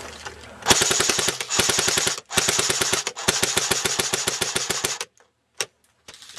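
Airsoft gun firing full-auto, a fast rattle of shots at roughly ten a second in several long bursts with short breaks, for about four seconds, followed by one single shot.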